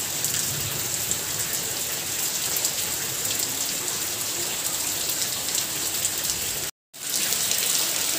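Heavy rain falling steadily on a garden courtyard and tiled roof. The sound cuts out for a moment about seven seconds in, then the rain carries on.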